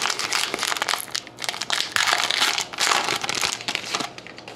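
The foil wrapper of a 2011-12 Panini Rookie Anthology hockey card pack being torn open by hand, crinkling and crackling irregularly, then stopping about four seconds in.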